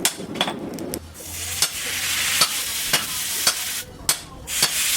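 Hammer blows on steel at a blacksmith's anvil, roughly two a second, over a loud hiss that swells about a second in and falls away near the end.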